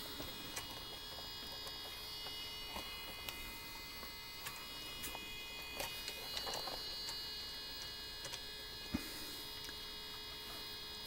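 Faint, steady electrical hum made of several high, even tones, with scattered light clicks and taps.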